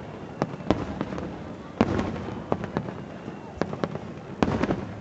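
Aerial fireworks bursting: a run of sharp bangs at uneven spacing, with a loud one about two seconds in and a quick cluster of bangs near the end.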